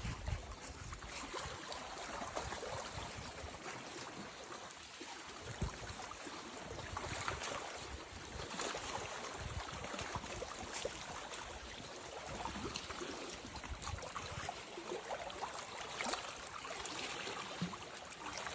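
Water moving along a lakeshore: a steady hiss with irregular low rumbles.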